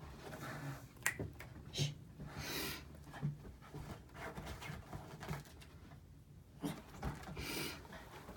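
Makeup brush rubbing over the eyelid: faint soft swishing strokes, twice more noticeably, with a few small clicks from handling.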